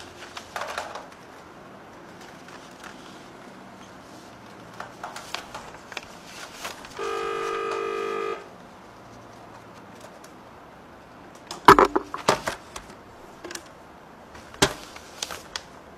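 A telephone tone sounds once for about a second and a half, made of several steady pitches together. Around it are scattered clicks and sharp knocks, the loudest about twelve seconds in and again near the end.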